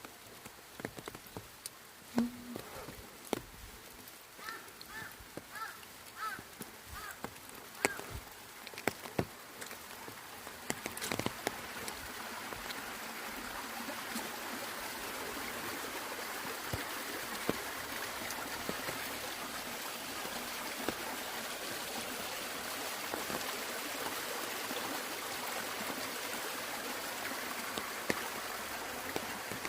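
Raindrops tapping an umbrella in scattered, uneven drips, with a short run of high chirps about five seconds in. From about eleven seconds a steady rushing hiss of water comes in and holds.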